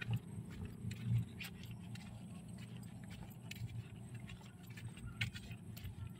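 Footsteps on a dirt trail, irregular crunching ticks a second or so apart, over a low rumble on the phone's microphone that swells about a second in.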